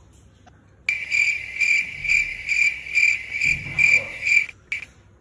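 Cricket-chirping sound effect: a steady high chirp pulsing about twice a second. It cuts in sharply about a second in and stops abruptly near the end.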